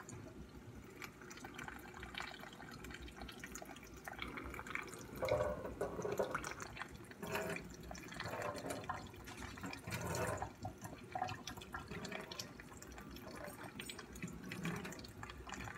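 Kitchen faucet running onto a silicone pop-it toy held over a stainless steel sink, the water filling its cups and splashing and dripping into the sink in uneven, irregular splashes.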